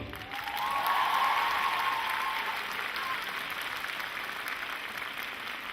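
Audience applauding at the end of a song, slowly fading. In the first couple of seconds a single drawn-out cheer rises in pitch over the clapping.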